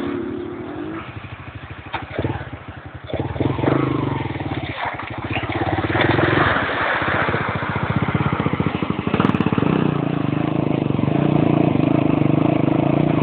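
ATV engine running under load as the quad drives through a stream, with water splashing around it. The engine drops off briefly about two seconds in, then picks up again and runs steadily.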